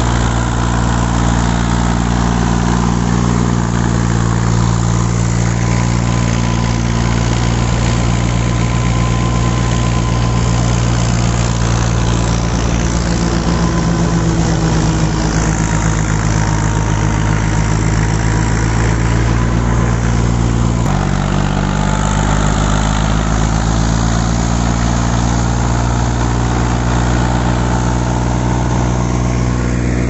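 Al-Ghazi tractor's diesel engine held at full throttle, driving a PTO-powered paddy thresher as it blows straw out of its chute; a steady, loud running sound, with a small abrupt shift in pitch about 21 seconds in.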